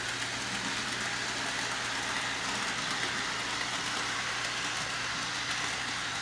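HO-scale model train running along the layout track: a steady whirring of the motor and wheels rolling on the rails.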